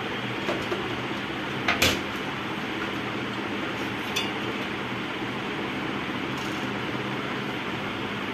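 Circuit boards and the thin sheet-metal chassis of an opened LCD monitor being handled: a sharp click about two seconds in and a few fainter clicks, over a steady hiss with a low hum.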